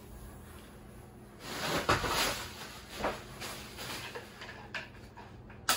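Product packaging being handled and pulled open: scraping and rustling, loudest about two seconds in, with a sharp click near the end.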